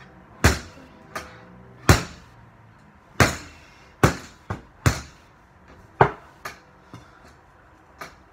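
Fist punches on a free-standing reflex bag (a punching ball on a spring-mounted pole), about eleven sharp hits at an uneven pace, some hard and some lighter.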